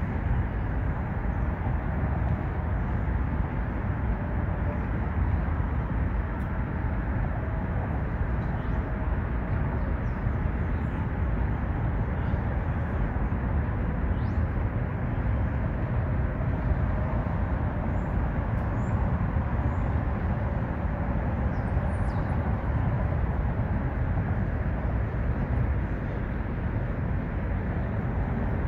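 Steady low rumble of traffic on the elevated viaduct overhead, with a few faint bird chirps above it.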